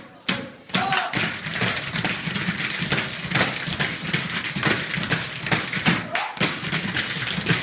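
Tap shoes striking a hard floor in quick, irregular runs of taps: tap dancing. The taps start about a second in after a short quiet and break off briefly about six seconds in.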